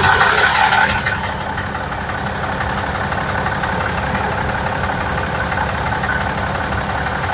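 A steady mechanical running noise like an engine or motor. It is louder in the first second, then holds level.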